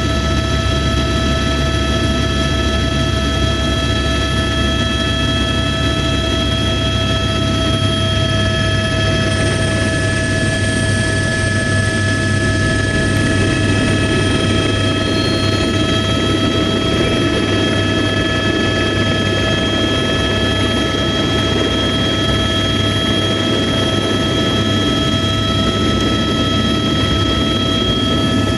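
Helicopter in flight: a steady engine whine of several high tones over a low rotor rumble, unchanging throughout.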